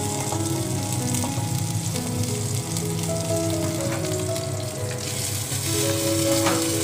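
Chicken pieces sizzling steadily as they fry in a little olive oil with garlic powder in a small saucepan, being cooked briefly to take away the raw chicken's rawness.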